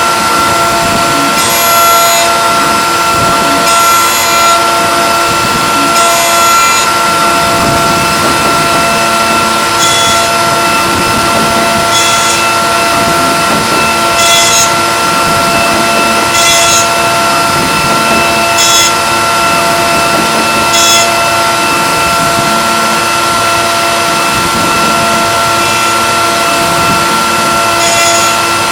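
CNC machine running a machining job: a steady, high spindle whine, with a short hissing cut repeating about every two seconds that fades out in the last few seconds and returns near the end.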